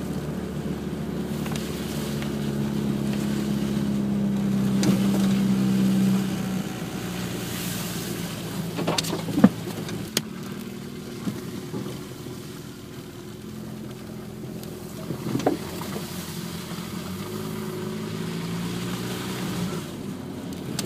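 Car engine and road noise heard from inside the moving car. The engine grows louder for about the first six seconds, then eases off, and a few sharp clicks or knocks come near the middle.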